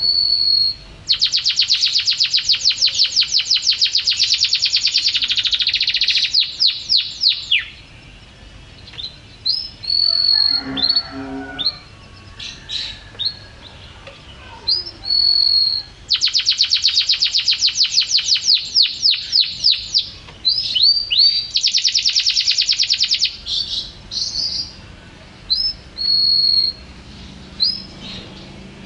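Domestic canary singing vigorously: two long, very rapid trills of repeated high notes, with short whistled notes and chirps between them.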